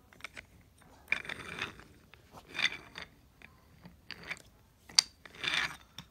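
Handling noise from small toy train engines and wooden railway track: a few short scrapes and rustles, with a sharp click about five seconds in.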